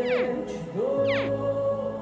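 Repeated short chirps that sweep quickly down in pitch, about three in two seconds: the grunting distress call of a jacaré (caiman) hatchling, which draws the adult caiman. A music track with held notes plays under it.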